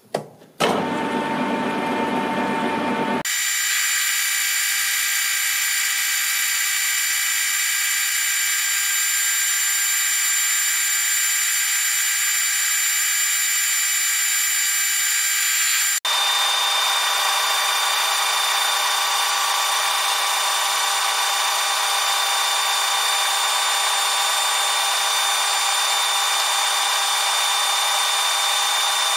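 Metal lathe running while facing the back edge of a bar-stock blank, heard as a steady high whine of several fixed tones. The whine jumps abruptly to a different pitch about 3 s in and again about 16 s in.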